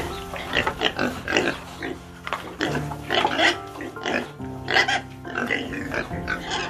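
Pig calling in short, repeated grunting calls, over background music with steady held notes.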